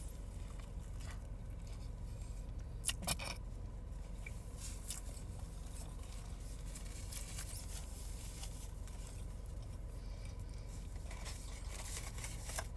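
A person chewing a mouthful of chicken sandwich inside a car, with small clicks and crinkles from handling the sandwich and its wrapper, over a steady low hum. There are two sharper clicks about three seconds in and another near the end.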